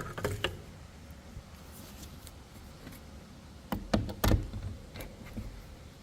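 Handling noise from tools: a few light clicks, then a cluster of louder knocks about four seconds in, with no power tool running.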